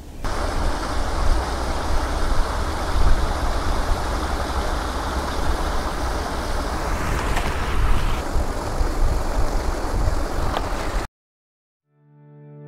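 Steady rush of water flowing over and through a beaver dam, with a low rumble under it. It cuts off about eleven seconds in, and music begins to fade in near the end.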